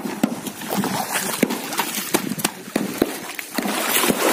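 Shallow river water splashing and running over stones as hands work in the streambed, with scattered sharp knocks throughout. The splashing gets louder about three and a half seconds in.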